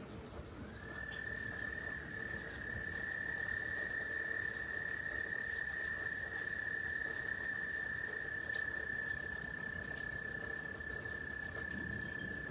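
A frog trilling: one long, steady, high-pitched trill lasting about twelve seconds, starting about half a second in.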